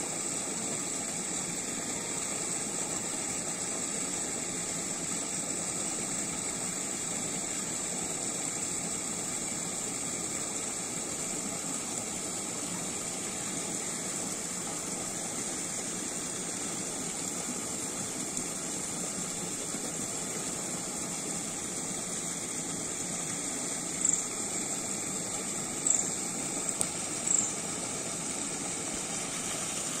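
Small waterfall spilling over a concrete weir into a rocky pool: a steady rush of falling, splashing water. Three short high-pitched sounds come about a second apart near the end.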